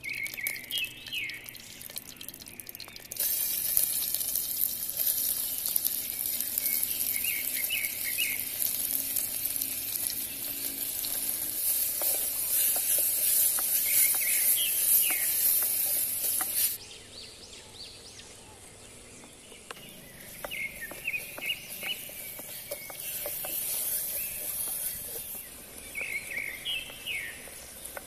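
Sliced onions frying with a sizzle in a clay pot over a wood fire, stirred with a wooden spatula. The sizzle comes up loudly about three seconds in and drops off sharply just past the middle, then returns more faintly. Birds chirp briefly several times.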